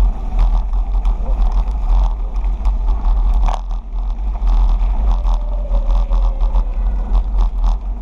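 Heavy wind rumble on the action camera's microphone from riding a bicycle, with the tyres rolling on a gravel path and frequent small clicks and rattles from the bike.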